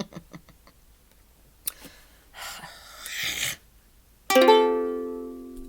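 A rustle, then a single chord strummed on an acoustic string instrument about four seconds in, ringing and slowly dying away.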